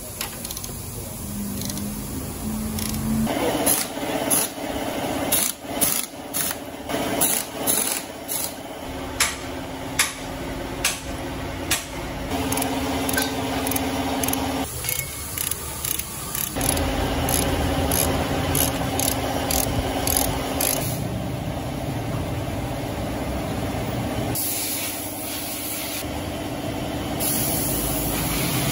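Metal hand tools clicking and clinking on a diesel engine being assembled, a run of sharp clicks, over a steady mechanical hum.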